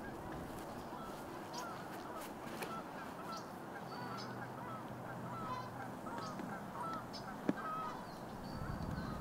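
A flock of birds calling: many short, overlapping calls over steady outdoor background, with a sharp click about seven and a half seconds in.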